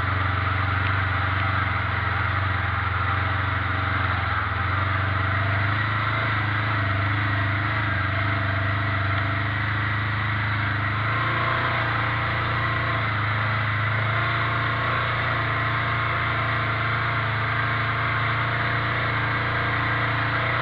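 ATV engine running steadily at low speed, its note shifting slightly about eleven seconds in.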